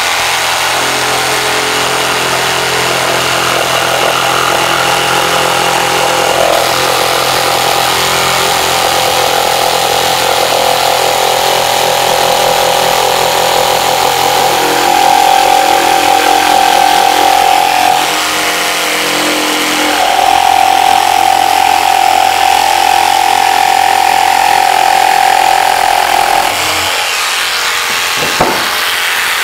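Mafell P1CC jigsaw's 900 W universal motor running under load as its blade cuts a tight scroll through a thick piece of hard, old rafter timber. The motor whine shifts in pitch as the cut is steered, dips briefly about two-thirds of the way through, then stops a few seconds before the end.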